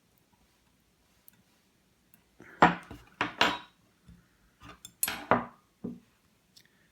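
Small metal lock parts clinking and clattering onto a hard surface: the pins and plug of a padlock being tipped out as it is gutted. It comes as several sharp clatters spread over about three and a half seconds, starting about two seconds in.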